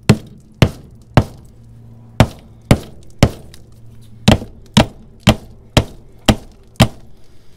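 Hammer blows on a pontoon boat seat's swivel mount, about a dozen sharp strikes mostly two a second in short runs, knocking at a seat that is corroded and frozen onto its aluminum pedestal shaft.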